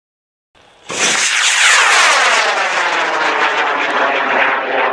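High-power hobby rocket motor burning as the rocket lifts off and climbs: a loud rushing roar that starts abruptly about a second in, with a whoosh whose tone sweeps steadily downward as the rocket climbs away.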